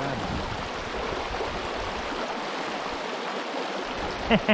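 Small stream flowing, a steady rush of water, with a brief voice near the end.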